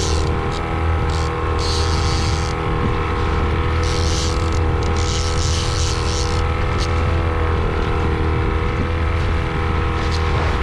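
Boat engine running steadily at trolling speed, with a hiss that comes and goes over it.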